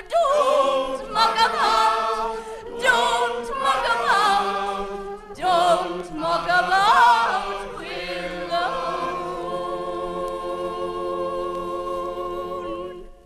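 A group of voices singing together without accompaniment, ending on a long held chord that cuts off suddenly near the end.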